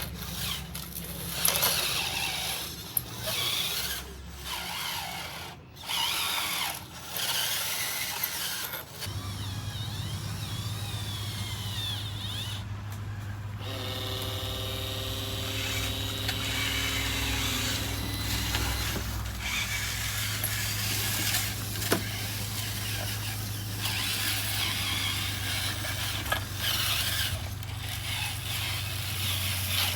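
Small electric motors and gearing of radio-controlled construction models running, with scraping and rustling at first. About nine seconds in, a steady low motor hum sets in and runs on, with a few seconds of higher whine in the middle.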